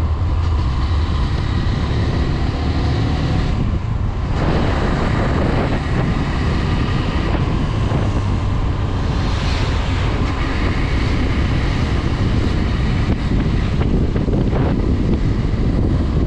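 Steady wind rush over the microphone while riding, with the Honda Twister 250's single-cylinder engine running underneath.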